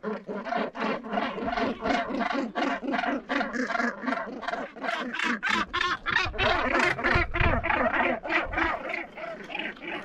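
Northern gannet colony calling: many gannets give a rapid run of overlapping calls, several a second, without a break.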